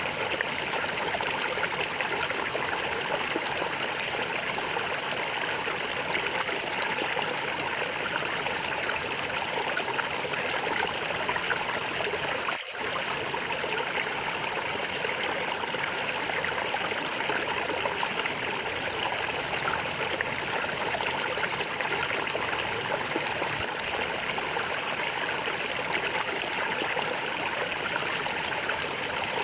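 Stream water gurgling and trickling steadily, with one momentary dip in level about a dozen seconds in.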